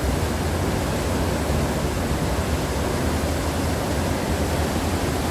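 Steady rushing noise on the open deck of a cruise ship under way, from wind and the churning sea of the wake, with a deep rumble underneath.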